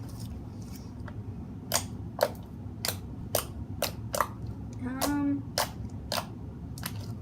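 Homemade slime being kneaded and stretched by hand, giving a string of sharp sticky pops and clicks, about two a second.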